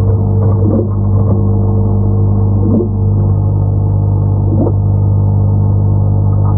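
A steady low hum with a ladder of even overtones, unchanging throughout, with a faint short sweep about every two seconds.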